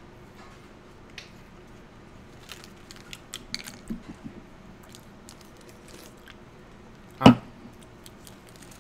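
Two people biting into and chewing a crisp, airy puffed snack, with scattered soft crunches, and one louder short thump about seven seconds in.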